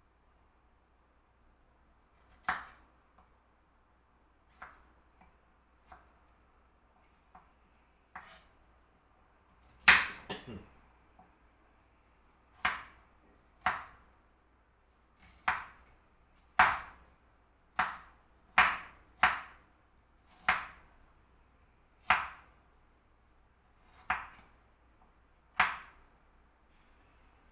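Knife chopping on a cutting board in separate, unhurried strokes, roughly one every second or so, the loudest about ten seconds in.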